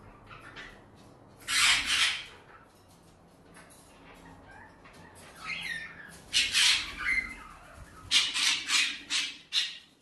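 Cockatiels giving harsh, screechy calls. There is a double call about one and a half seconds in, then a run of repeated calls from about five and a half seconds to near the end.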